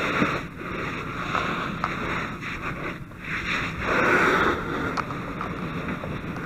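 Fire hose stream spraying water into a burning car: a steady rushing hiss that surges about four seconds in.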